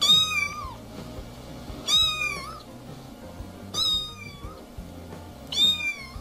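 Domestic cat meowing four times, about every two seconds, each call short and high, dropping in pitch at its end.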